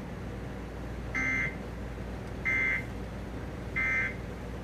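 Emergency Alert System end-of-message data tones: three short bursts of SAME digital warble, about 1.3 s apart, marking the close of the relayed flash flood warning.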